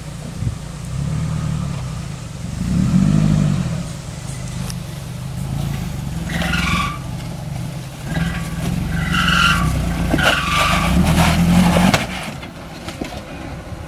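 Mitsubishi L300 4x4 van's 2.4-litre 16-valve petrol engine revving up and down under load as the van crawls over a rock step. High squeals come twice, from tyres scrubbing on the rock. The revs drop off near the end.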